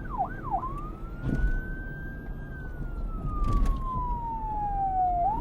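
Emergency-vehicle siren switching from a fast yelp, about three sweeps a second, to a slow wail about half a second in. The wail rises for about two seconds, then falls slowly for about three seconds before climbing again near the end, over a low rumbling background.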